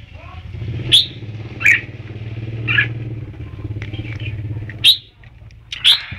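Red-whiskered bulbul calling: a series of short, sharp notes about once a second, over a steady low hum that drops away about five seconds in.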